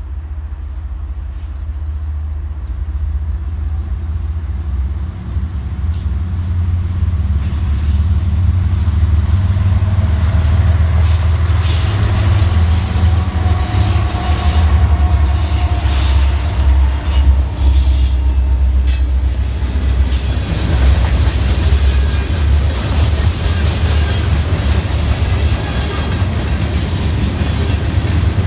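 A train approaching and rolling past: a deep rumble that builds over the first several seconds and then holds, with wheels clicking over rail joints as the cars go by.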